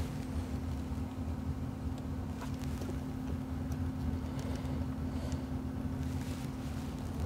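A steady low electrical hum over a low rumble, with a few faint small clicks.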